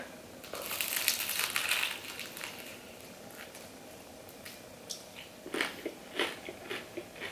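A bite into the crispy skin of a fried chicken drumstick, a crackling crunch lasting about a second and a half. Quieter chewing with scattered clicks follows, picking up again near the end.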